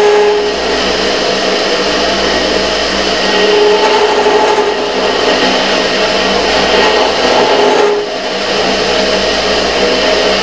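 Metal lathe running with a steady motor and gear whine while the threading tool is fed in to cut a shallow groove (thread relief) in the spinning part. The level dips briefly about eight seconds in.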